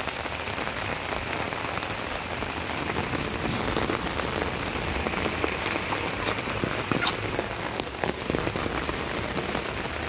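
Steady rain falling, its drops hitting the fabric of an umbrella held just overhead as a dense, even spatter of small ticks.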